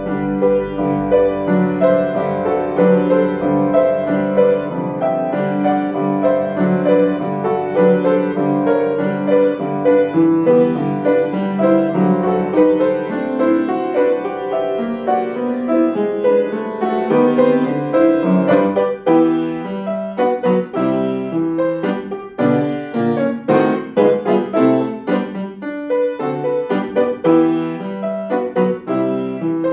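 Grand piano played solo: a flowing passage of held, connected notes that turns, about halfway through, into shorter, sharply struck chords and notes.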